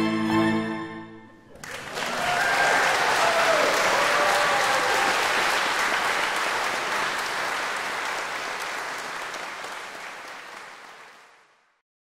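A string quartet's closing chord on violins, viola and cello ends about a second and a half in, and audience applause breaks out at once. The clapping is steady at first, then slowly fades away, gone just before the end.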